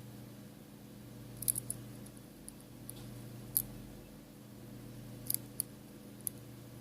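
Small, sharp clicks of metal tweezers against the iPhone 5s's internal parts as the home button cable is being connected, a few scattered taps with a steady low hum beneath.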